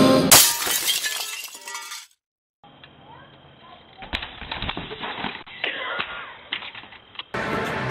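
A loud crash with clinking, breaking glass as a man falls while dancing, cutting off live band music. After a short gap, a BMX bike drops off the top of a wooden quarter-pipe ramp and clatters down with several sharp knocks as the rider crashes.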